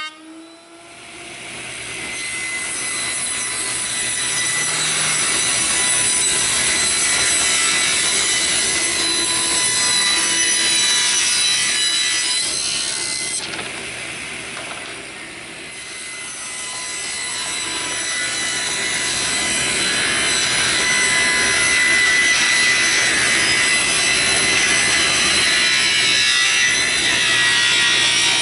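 Table saw running and cutting through a strip of wood, a steady high whine under the sound of the cut. The sound breaks off abruptly about halfway through and then builds again as a second cut is fed.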